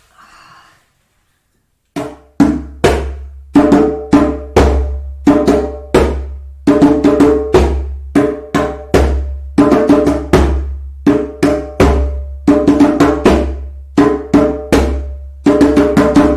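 Djembe drum struck by hand in a steady rhythm, starting about two seconds in, each stroke sharp with a short pitched ring.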